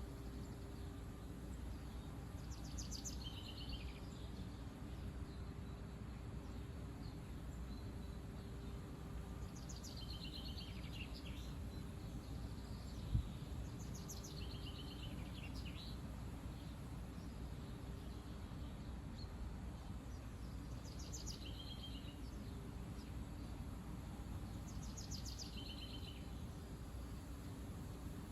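Steady low rumble of wind on the microphone, with a small songbird singing a short phrase of quick notes falling in pitch five times, several seconds apart. A single sharp thump about halfway through.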